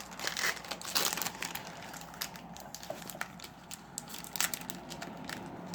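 Foil Yu-Gi-Oh booster-pack wrappers crinkling and trading cards being handled, a run of irregular sharp crackles and clicks.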